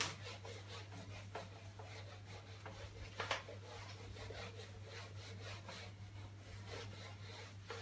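A handheld duster wiping a whiteboard: faint, repeated rubbing strokes of the eraser across the board's surface, one stroke stronger about three seconds in.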